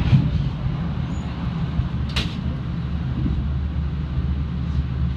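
Passenger train running, heard from inside the car as a steady low rumble, with one short, sharp high-pitched sound about two seconds in.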